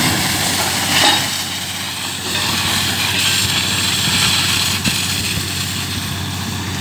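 Truck-mounted water well drilling rig running steadily, with a rushing hiss of compressed air blasting dust and water out of the borehole; the blast flares loudest about a second in.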